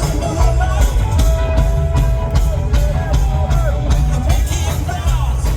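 Rock music with drums, guitar and a singing voice, loud and bass-heavy.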